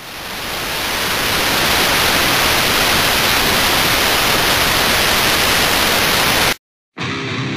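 Television static: a steady hiss that fades in over the first second or two, then cuts off suddenly about six and a half seconds in. Heavy-metal guitar music starts half a second later, near the end.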